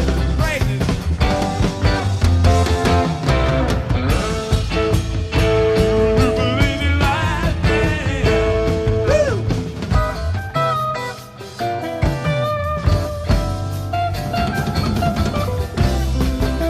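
Live rock band playing: electric guitars with bending lead lines over a drum kit, with a brief drop in loudness about eleven seconds in.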